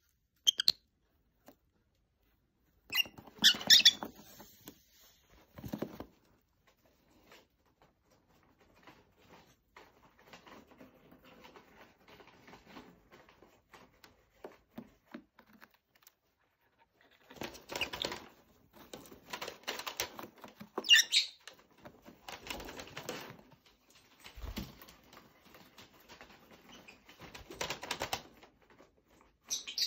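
Lovebird chewing and shredding cardboard, scratchy rustling and nibbling in spells with quiet gaps between. A few short high chirps come through now and then.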